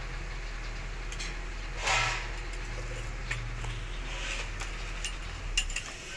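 Bike floor pump being handled during a repair: light clicks and knocks of its plastic and metal parts, with one brief louder noise about two seconds in.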